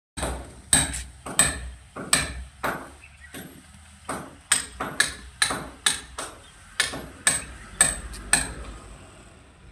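A hammer striking repeatedly, about eighteen sharp blows at roughly two a second, stopping near the end.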